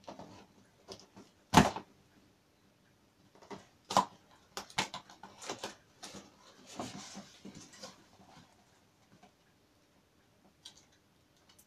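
A long cardboard box being handled and opened by hand: a sharp knock about one and a half seconds in, a run of taps and scrapes around four to six seconds in, then a stretch of cardboard rustling and scraping, with only a few light clicks near the end.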